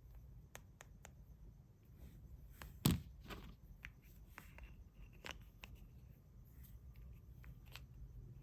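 Quiet handling noises: scattered light clicks and taps, with one louder knock about three seconds in.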